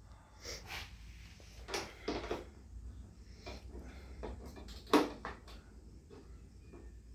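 Scattered clinks and knocks of hand tools and metal nuts and bolts being handled while a wagon's bolted wheel assembly is taken apart, with one louder knock about five seconds in.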